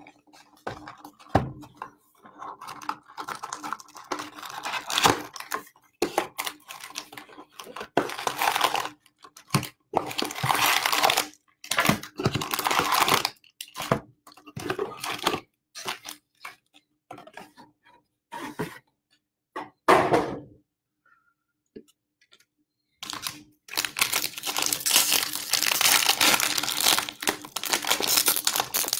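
A jumbo pack of baseball cards being torn open, its wrapper crinkling and the cards rustling as they are handled, in many short noisy bursts. After a brief pause about three-quarters of the way through, a long stretch of continuous crinkling follows.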